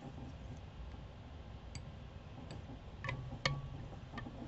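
Faint, scattered clicks and light taps from handling at a fly-tying vise, about five in the second half, the loudest about three and a half seconds in; two of them leave a brief ring.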